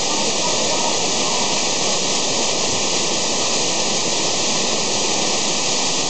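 Small waterfall pouring over boulders into a rocky stream pool: a steady, unbroken rush of falling water.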